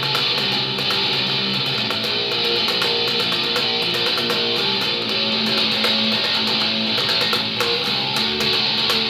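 Four-string electric bass played fingerstyle, a riff of held low notes that change every second or so, with sharp plucking ticks over them.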